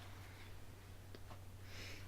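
Quiet room tone with a steady low hum, two faint clicks a little past halfway, and a short soft breath near the end.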